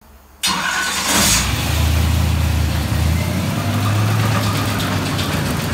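A 6.0 L LQ4 Chevy LS V8 with a Texas Speed Stage 1 camshaft, on an engine stand, starts suddenly about half a second in, flares briefly and settles into a steady idle. Its idle pitch steps up about three seconds in.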